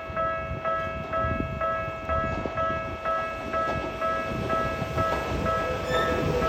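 Japanese level-crossing warning bell ringing, a pitched electronic chime repeating about twice a second. The rumble of an approaching train grows beneath it near the end.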